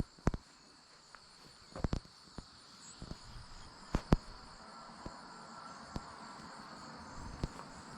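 A steady, high-pitched drone of insects in summer woodland, broken by a scattering of sharp clicks and knocks.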